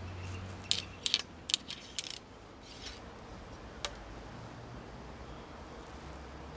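A quick run of sharp, uneven small clicks in the first two seconds, then two single clicks, the last about four seconds in: small metal parts of a recurve bow's setup being adjusted and handled, as when resetting the sight down a couple of notches after shortening the clicker.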